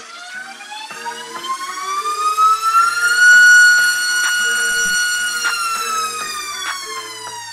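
iFlight XING2 2306 2555KV brushless motor spinning a three-blade 5-inch prop on a thrust stand through a throttle ramp. Its whine rises in pitch for about three seconds up to full throttle, about 29,000 RPM. It holds there, loudest, for a couple of seconds, then falls as the throttle ramps back down.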